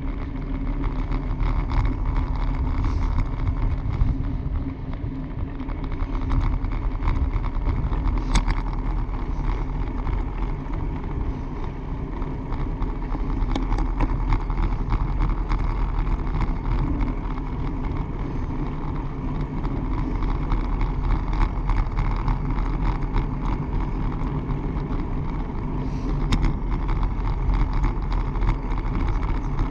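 Steady rumble and rattle of a bicycle ridden at speed on a paved trail, with a sharper click about eight seconds in and another near the end.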